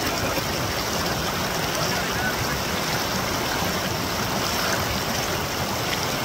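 Fast mountain creek rushing over rocks in small rapids, a steady even rush of water.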